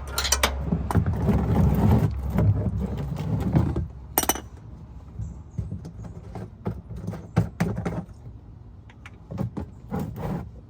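Loud scraping and shuffling for about four seconds, then scattered light metallic clinks and taps from hand tools at the oil pan drain plug under a car.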